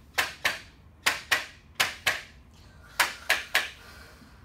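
A chiropractor's hands slapping sharply on a patient's muscles, in quick pairs about a second apart and a run of three near the end. This is percussion to bounce the muscle spindles and stretch out the muscle.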